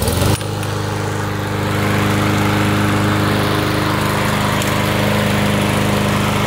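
Gas walk-behind lawn mower engine starting: it catches just after the start and then runs steadily.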